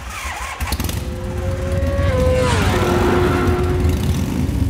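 Intro logo sound effect: a deep, engine-like rumble under a sustained tone that sweeps down in pitch about halfway through, like a vehicle passing by, then holds at the lower pitch.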